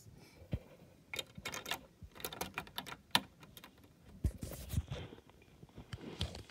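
Irregular small plastic clicks and taps of LEGO pieces being handled on the model, with a couple of duller knocks about four and a half seconds in.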